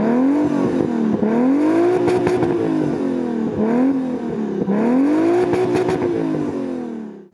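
Turbocharged Toyota Supra engine in a VAZ-2104, free-revved at standstill through its exhaust: four or five blips of the throttle, pitch rising and falling, the later ones held for a second or two, with a few short crackles.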